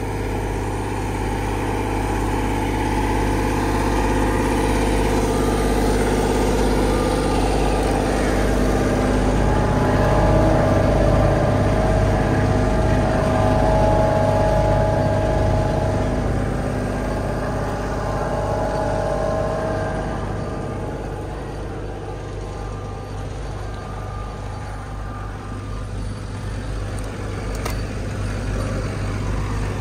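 Tractor with a vibrating roller running over crushed brick and concrete rubble, compacting it: a steady low drone from the vibrating drum under the tractor's diesel engine. It grows louder as the roller comes close, about halfway through, then fades as it moves off.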